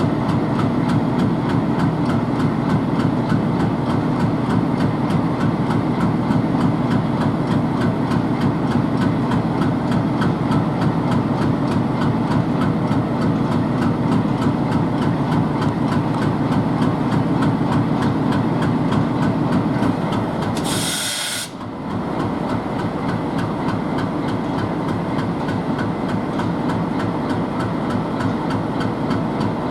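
ALCO WDM 3D diesel-electric locomotive's 16-cylinder 251 engine idling steadily, with a short hiss about two-thirds of the way through.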